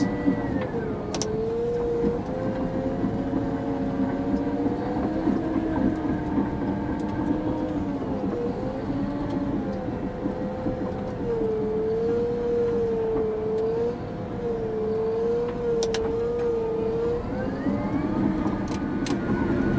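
Caterpillar D6 bulldozer's diesel engine running under load, heard from inside the cab, its pitch wavering gently up and down as the dozer pushes slowly. A few short sharp clicks stand out over the steady rumble.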